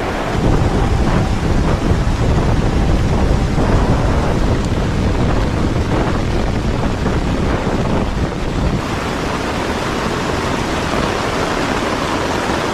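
Storm wind gusting hard over a tarp shelter, buffeting the microphone, with rain; the strongest gust eases about nine seconds in.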